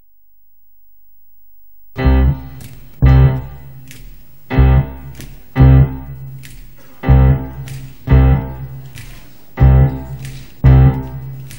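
Piano playing the slow opening of a live song: eight full chords, struck in an uneven long-short rhythm about every second and a half, each ringing and fading before the next. The chords begin about two seconds in, after a faint fade-in.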